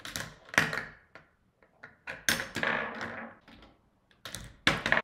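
Plastic parts of a Mouse Trap board-game contraption clacking and knocking as it is worked by hand, in irregular sharp clacks, some in quick clattering runs. This is a Rube Goldberg–style machine failing to run through and being tried again.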